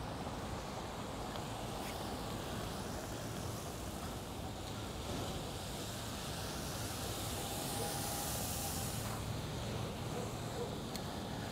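Steady road noise while cycling on wet streets: tyres hissing on wet pavement and wind on the microphone. A louder hiss swells and fades about eight seconds in.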